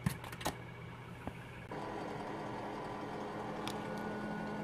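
A few light handling clicks and knocks, then about a second and a half in a ventilation fan motor starts and runs with a steady hum, with a faint high whine added near the end.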